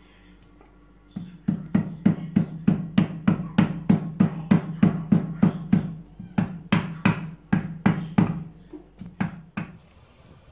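A wooden rolling pin knocks on a whole Jamaican yellow yam in steady strokes, about three a second, with a short pause midway. The yam is being beaten all over before roasting.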